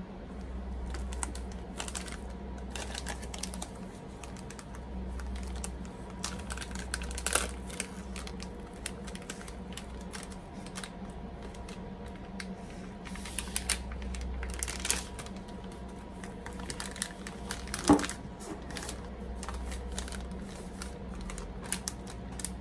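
Plastic snack wrapper crinkling and crackling in irregular bursts as it is handled and a thin, crisp dried-fish sheet is drawn out. One sharper crack comes about three-quarters of the way through, and a faint steady low hum runs underneath.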